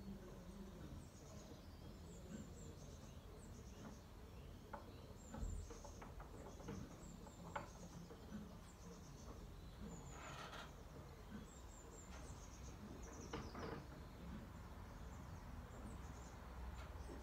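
Faint belfry ambience: small birds chirping outside, heard through the louvred openings, over a low steady rumble, with a few brief clicks.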